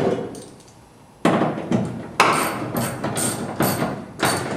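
A bolt on the Chevelle's quarter-glass mechanism being tightened with a hand tool: several short strokes of metal working against metal, the first about a second in and the rest in a quick run near the end.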